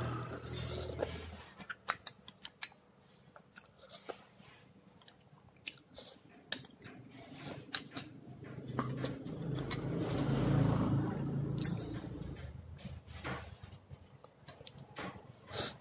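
Close-up chewing and mouth sounds of a person eating roti with chana dal, with sharp clicks of a metal spoon against a glass bowl and plate. A low hum swells and fades in the middle, loudest about ten seconds in.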